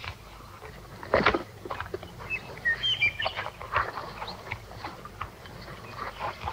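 Light knocks and clinks of camp gear being handled as a man helps himself to coffee, the loudest about a second in, with a few short bird chirps around three seconds in.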